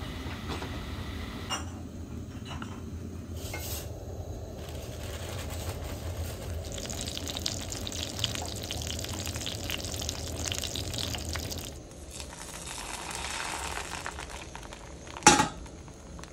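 A pan of kaz kaldıran, a cheese and cornmeal dish, bubbling and sizzling on the heat, with small clicks of stirring. The sound changes abruptly about twelve seconds in, and a single sharp knock comes near the end.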